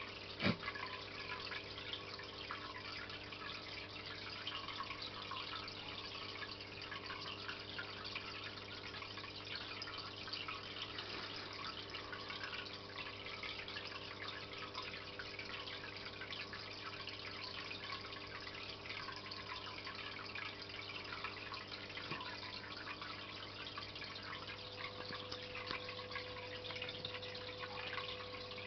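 Aquarium filter running: a steady trickle and crackle of falling, bubbling water over a constant low mechanical hum. A single sharp knock about half a second in.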